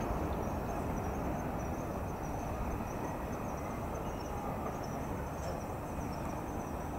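Outdoor ambience: insects chirping continuously at a high pitch over a steady low background rumble.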